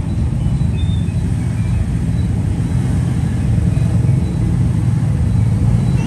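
Steady low rumble of background noise, with no distinct events standing out.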